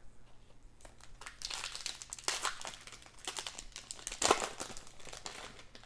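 Foil wrapper of a Panini Chronicles basketball card pack crinkling and tearing as it is ripped open by hand, a run of crackles starting about a second in, with sharp loud peaks around two and four seconds in.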